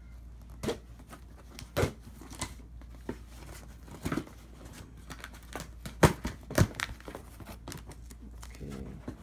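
A cardboard shipping box being opened by hand: packing tape tearing and cardboard and paper crinkling in irregular sharp bursts.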